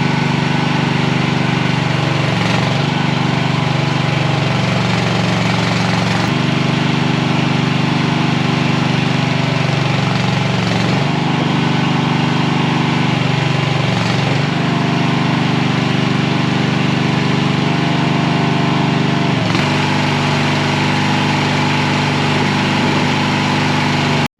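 Mini skid steer's engine running steadily, its pitch dipping and shifting briefly every few seconds as the machine works. The sound cuts off abruptly at the very end.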